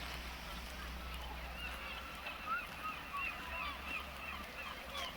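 Geese honking: many short calls in quick succession, overlapping as from several birds, over a steady low hum.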